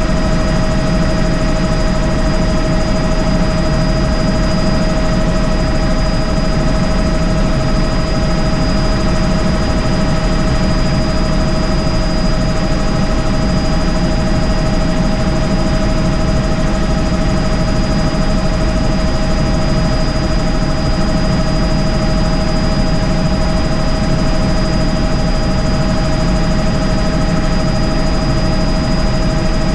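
Helicopter in flight heard from inside the cabin: a steady, unchanging drone of rotor and engine with several constant whining tones over it.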